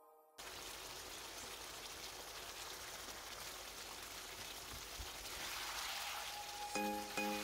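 Curry gravy simmering and sizzling in a wok, a steady bubbling hiss that starts abruptly about half a second in. Background music with a plucked melody comes in near the end.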